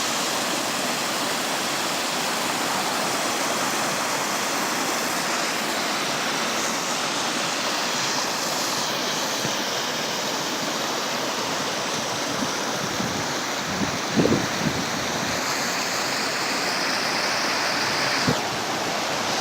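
Creek water rushing steadily, a loud even hiss. A couple of brief low thuds stand out, about fourteen seconds in and near the end.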